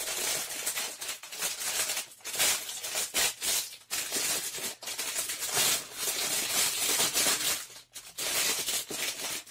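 Loose clear plastic bag crinkling as hands press and rub it over a boxed package: a continuous crisp crackling in runs with a few short breaks.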